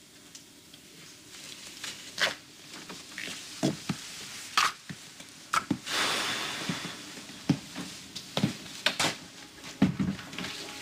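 Belongings being handled and packed away: scattered knocks and clunks of objects set down, with a longer rustle about six seconds in.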